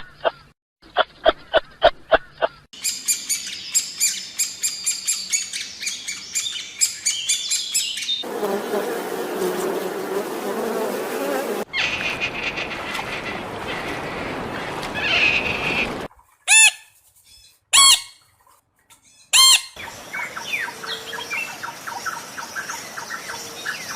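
A run of short animal-call clips in turn: fast repeated high chirping, a stretch of noisy hiss, then three loud separate squawks a little over a second apart and more faint chirping.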